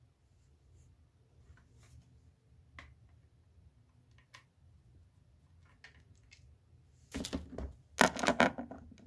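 A few faint clicks from a screwdriver working the small screw in the router's plastic casing, then about seven seconds in a loud burst of rustling, clicking and knocking as the plastic unit is handled.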